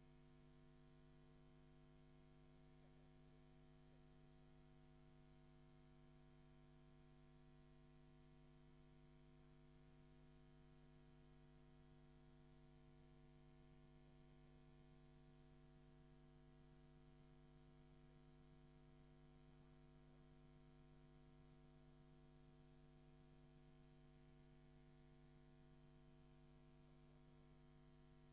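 Near silence: only a faint, steady electrical hum of several held tones.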